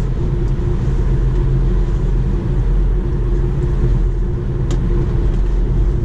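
Steady road noise inside the cabin of an electric Tesla Model 3 cruising at highway speed: a low rumble of tyres on pavement with wind rushing past the body, and no engine note. One faint click about three quarters through.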